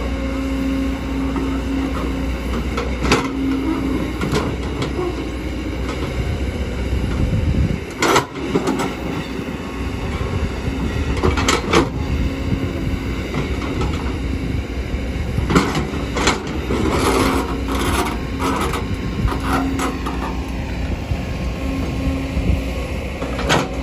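Kobelco hydraulic excavator working soil: its diesel engine runs steadily under load, with several sharp metallic clanks and knocks from the bucket and tracks.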